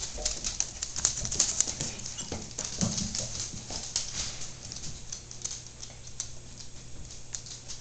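Border collies play-wrestling on a hardwood floor: quick clicks and scrapes of claws and paws scrabbling on the boards, busiest over the first few seconds and thinning out after.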